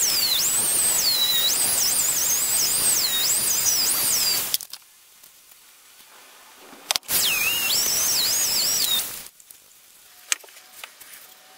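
Flexible-shaft rotary tool with a small grinding stone grinding the steel of a cleaver's hanging hole: a high whine that wavers up and down in pitch as the stone bites. It stops about four and a half seconds in, runs again briefly around seven seconds, then only faint handling clicks.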